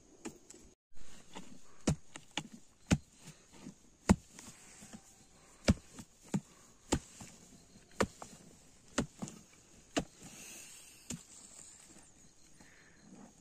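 A metal blade chopping and scraping into hard, dry soil while a hole is dug out, with sharp knocks coming irregularly, roughly once a second.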